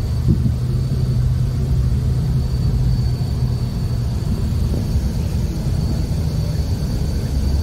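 Steady engine and road rumble heard from inside a moving vehicle, with a low engine hum and a faint high whine over it.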